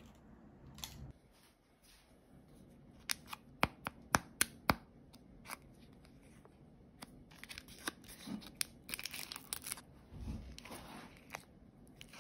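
Plastic wrapper of a frozen mitsu-anzu apricot candy packet being handled and torn open: a few sharp clicks about three to five seconds in, then crinkling and tearing of the plastic near the end.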